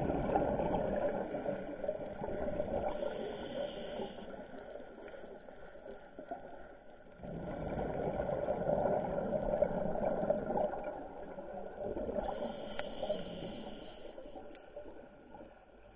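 Muffled underwater rushing and bubbling picked up through a camera's underwater housing, swelling and fading in slow waves every several seconds.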